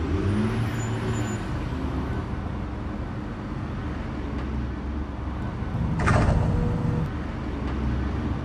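Cartoon fire truck engine sound effect running steadily as the truck drives, with a short burst of hiss about six seconds in.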